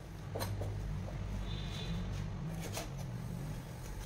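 Knife cutting a black pomfret on a cutting board: two sharp knocks about two and a half seconds apart, over a steady low hum.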